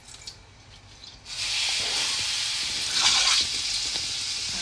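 Hot oil ladled onto chili powder and seasonings, sizzling. A sudden loud hiss starts about a second in, holds steady and swells about three seconds in.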